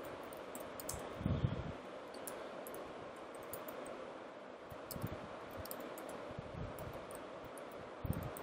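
Faint computer keyboard typing: scattered key clicks over a steady background hiss, with a soft low thump a little over a second in.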